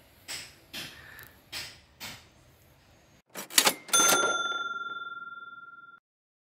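A few soft rustling knocks, then a quick clatter and a bright bell-like chime from the end-screen sound effect. The chime rings on one clear note, fades for about two seconds and cuts off suddenly.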